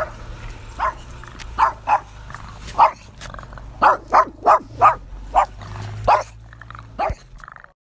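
Dog barking, about a dozen short separate barks with a quick run of four about four seconds in.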